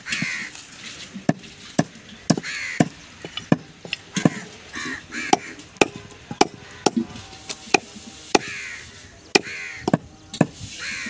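Heavy meat cleaver chopping goat meat and bone on a wooden log block: a steady run of sharp chops, about two a second. Birds call several times in the background.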